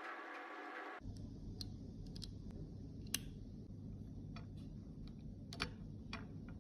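Small sharp clicks and taps of metal makeup compact cases being handled and opened by gloved hands, about ten scattered clicks over a steady low hum. A brief tonal sound in the first second cuts off abruptly.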